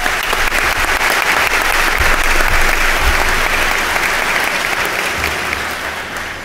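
Audience applauding a speaker's introduction, a dense clapping that tapers off near the end.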